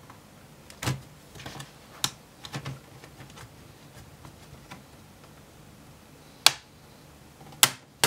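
Plastic retaining clips of a laptop's bottom cover snapping loose one after another as the base is lifted off the palm rest: a handful of sharp, irregularly spaced clicks, the loudest two near the end.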